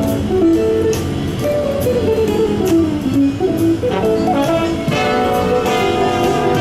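Instrumental music, its melody stepping down and rising again over a steady accompaniment.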